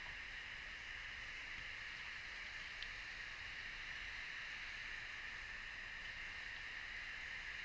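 Faint steady hiss with no distinct events, and a single soft tick a little under three seconds in.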